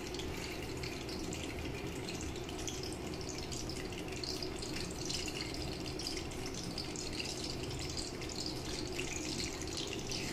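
Small whole fish frying in a pan of oil: a steady sizzle with fine crackles and pops of spattering oil.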